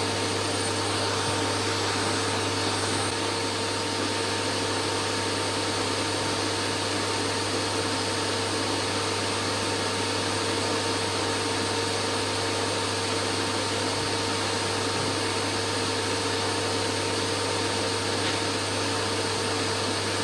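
Steady white noise for baby sleep: an even rushing hiss with a low hum underneath and a few faint steady tones, like a motor appliance running.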